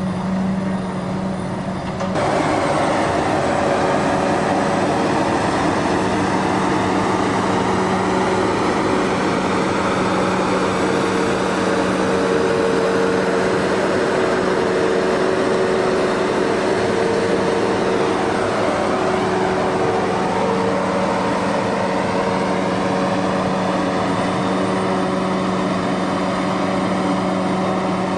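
Heavy farm machinery diesel engine running steadily at a constant speed. It gets louder and noisier about two seconds in.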